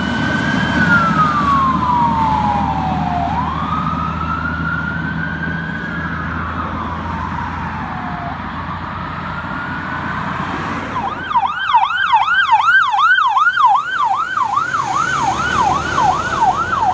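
Fire trucks' sirens on an emergency response. A slow wail rises and falls over the rumble of a diesel engine. About eleven seconds in, a fast yelp at nearly three sweeps a second takes over as another fire engine comes up and passes.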